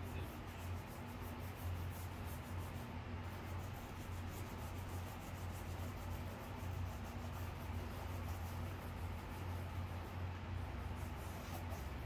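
Faint, steady rubbing and scraping over a low hum.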